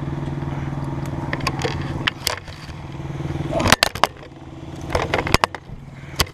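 An engine idles steadily and stops about two seconds in. After that comes action-camera handling noise: knocks and scrapes, with several sharp thumps, the loudest about halfway through and another near the end.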